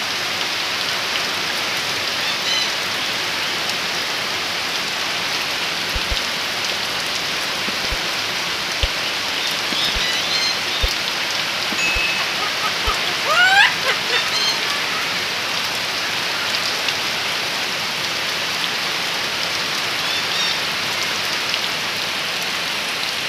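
Heavy rain falling steadily. A few faint high chirps and one brief rising call come through about halfway, with a few soft low knocks.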